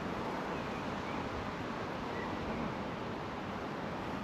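Steady rushing of river water flowing, an even noise that does not change.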